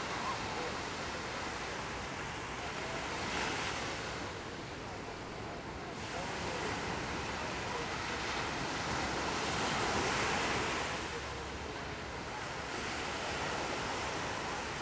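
Small ocean waves breaking and washing up a sandy beach: a steady wash of surf that swells louder about 3 s in and again around 10 s.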